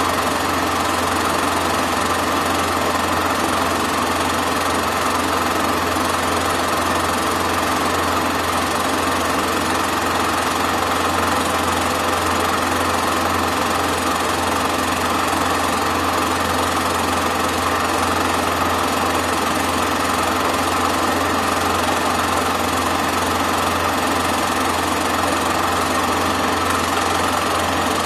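Super 8 film projector running: the steady mechanical whirr and clatter of its film transport and motor, with a low hum, unchanging throughout.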